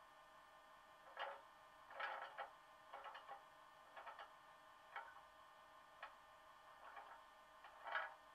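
Faint standing sound of a Bachmann Class 85 electric locomotive model's DCC sound decoder, played through its small speaker: a steady electrical hum with soft clicks about once a second.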